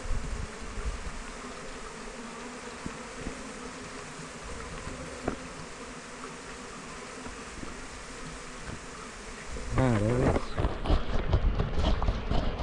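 Honeybees humming steadily from a mass of bees shaken out of their hive onto the ground. About ten seconds in, the sound grows louder, with a buzz that bends up and down in pitch and some low rumble.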